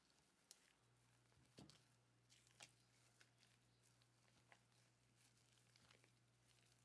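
Very faint soft ticks and squishes of a silicone spatula against a ceramic bowl as whipped egg whites are folded into melted chocolate, scattered a few times. A low steady hum comes in about a second in.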